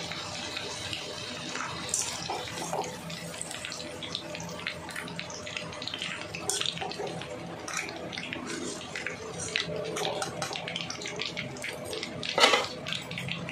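Cut vegetables shallow-frying in hot oil in a pan, a steady sizzle full of small crackles over a faint low hum, with one sharp knock near the end.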